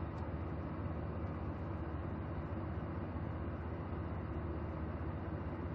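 HVAC blower fan of a 1994 Chevy S-10 Blazer blowing steadily out of the dash vents, with the vehicle's engine idling underneath in a steady low hum. Air reaching the vents shows the vent vacuum actuator is now working.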